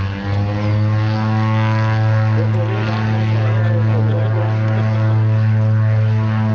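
De Havilland Canada DHC-6 Twin Otter's two PT6A turboprop engines and propellers at takeoff power during the takeoff roll: a loud, steady propeller drone that rises in pitch over the first second as power comes up, then holds.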